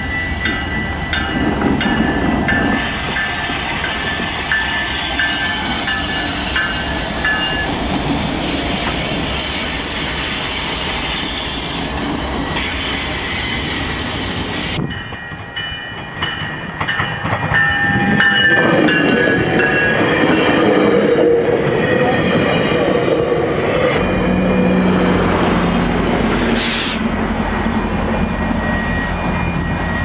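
Diesel train horns from several trains in turn. First a CN freight locomotive sounds its horn as it passes, with the rumble and wheel noise of the train. About halfway through, a GO Transit commuter train sounds its horn. Near the end a low engine drone is heard as another GO locomotive approaches.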